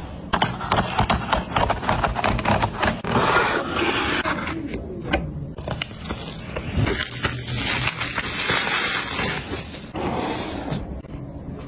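Laptop packaging being handled during an unboxing: scraping, crackling and tearing of box and wrapping, with many small clicks and knocks.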